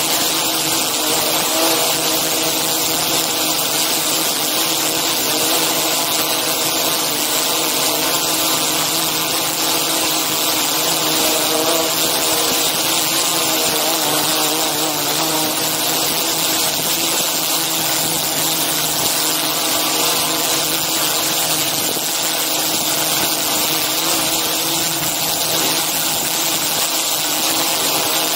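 DJI Inspire 2 drone's motors and propellers running steadily in flight. It is a loud, even hum of several steady pitches over a strong hiss.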